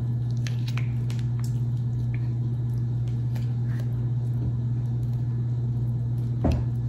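A steady low hum runs throughout, with faint wet squishes and small clicks of a soft, overripe mango being handled and peeled by hand. A brief louder noise comes near the end.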